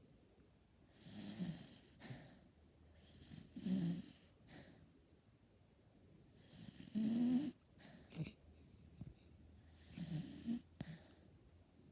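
A dachshund snoring quietly in its sleep: four snores about three seconds apart, each a short low buzz with a breathy hiss.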